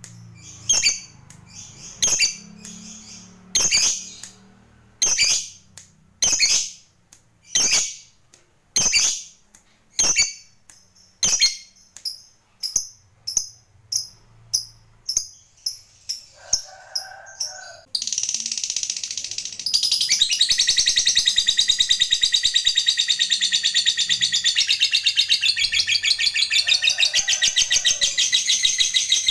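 A lovebird gives sharp single chirps about once a second that come quicker and quicker, then about 18 seconds in breaks into a long, unbroken rapid chattering trill, the 'ngekek panjang' (long chatter) prized in singing lovebirds.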